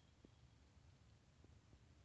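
Near silence: room tone with a faint low hum and two faint soft ticks.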